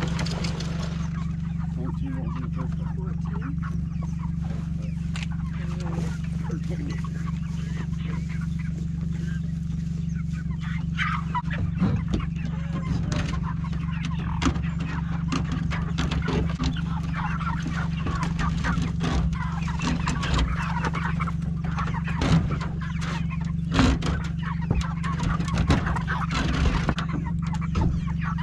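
Meat chickens clucking and squawking as they are caught and crated, busiest in the second half, with several sharp knocks of handling and plastic crates. A steady low hum runs underneath.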